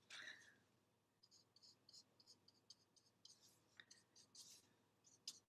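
Faint, irregular short swishes of a paintbrush stroking and dabbing paint onto the wet painting surface.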